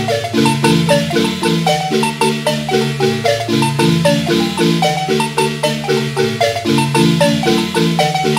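Marimba music: rapid tremolo on the melody notes over a stepping bass line, the traditional Guatemalan marimba sound.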